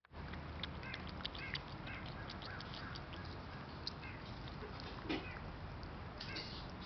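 Cat lapping broth from a glass bowl: quick, irregular wet tongue clicks, several a second, with one louder knock about five seconds in.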